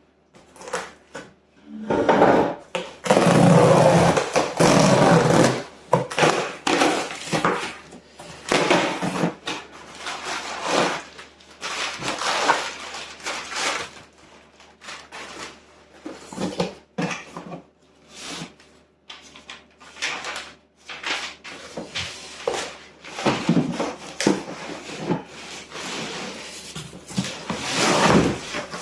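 A cardboard box and its packing being opened and handled by hand: irregular rustling and scraping, loudest for a few seconds near the start.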